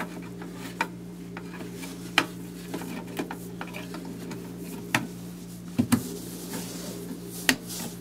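Sharp plastic clicks and taps as a 4 GB RAM module is pressed into a memory slot on a Mac Pro processor riser card and clicks into place, over a steady low hum.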